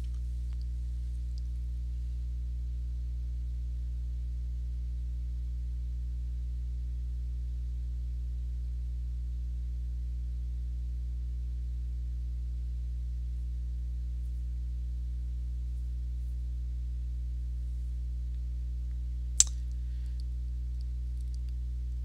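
Steady low electrical hum, with one sharp click late on.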